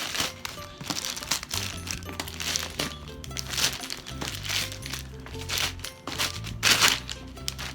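Background music with a stepping bass line, over irregular crinkling and rustling of a parcel's packaging being handled and opened, loudest near the end.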